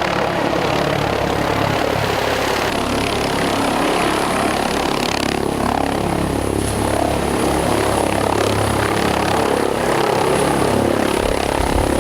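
Airbus H145 twin-turbine helicopter running: a steady rotor and engine drone, with a thin high turbine whine coming in about three seconds in.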